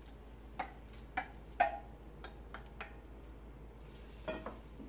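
Wooden spoon knocking and scraping against a stainless steel bowl as raw shrimp are pushed out into a frying pan: about six sharp taps in the first three seconds, several with a short metallic ring, then a few more knocks near the end.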